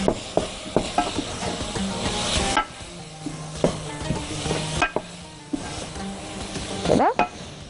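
Wooden spoon stirring and scraping a chicken-and-vegetable filling in a hot frying pan as it sizzles, with a few sharp knocks of the spoon against the pan. The sizzle is loudest for the first couple of seconds and eases off after.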